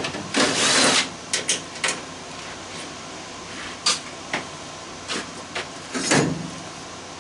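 Metal clanks, clicks and a brief scrape from parts and tools being handled while a sheet-metal household furnace is taken apart, with the heaviest knock about six seconds in.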